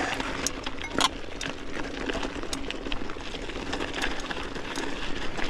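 Mountain bike rolling and climbing over a loose, rocky trail: tyres crunching on gravel, with scattered sharp clicks and rattles from the bike and the stones.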